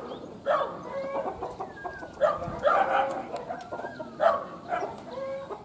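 Animal calls: a few short, loud calls about a second apart, with thin chirps in between.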